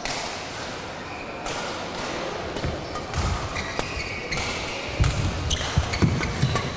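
Badminton rally: rackets cracking against the shuttlecock, a hit every second or so and quicker in the second half, with players' feet thudding on the court floor.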